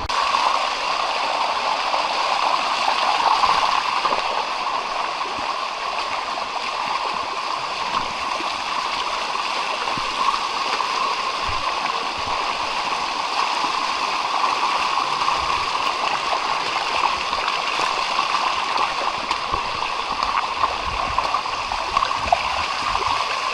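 Water running steadily down a shallow rock cascade waterfall, an even, unbroken rush.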